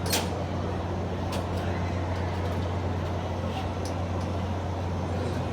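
Steady low mechanical hum of fairground ride machinery, with a few light clicks and knocks.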